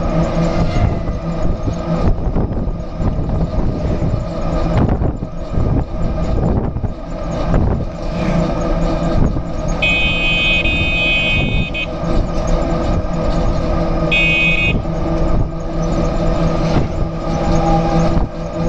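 Bus running along the road, its engine and road noise a steady drone. A horn sounds twice, a long blast about ten seconds in and a short one about four seconds later.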